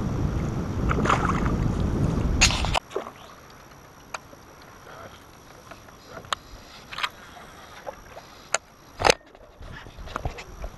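Water splashing and sloshing at the side of a small boat as a golden perch is held in the water, cutting off abruptly about three seconds in. A quiet stretch follows with scattered sharp clicks from handling a baitcasting reel, the loudest near the end.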